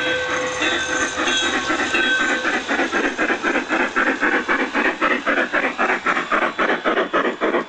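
G-scale model Norfolk and Western 2-8-8-2 Mallet steam locomotives running past, chuffing in a quick, steady beat of about five chuffs a second that comes in about two seconds in.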